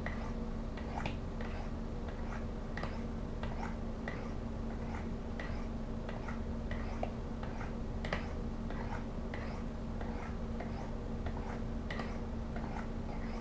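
Pocketknife blade stroked down the fine ceramic rods of a Spyderco angled sharpener, making light rasping ticks about twice a second in an even rhythm as the edge is polished after the coarser brown rods.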